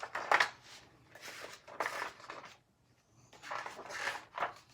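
Paper pages of a picture book rustling as they are handled and turned, in several short bursts.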